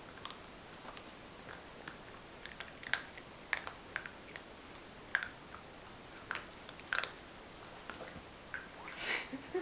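Small dog gnawing on a chew, irregular sharp crunches and clicks of teeth on the chew coming in uneven clusters. A short, louder noise comes near the end.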